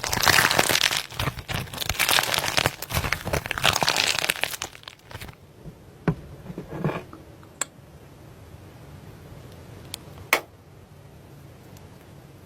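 Slime being squeezed and worked by hand, a dense crinkling crackle for about the first four and a half seconds, then quieter with a few single sharp pops and clicks.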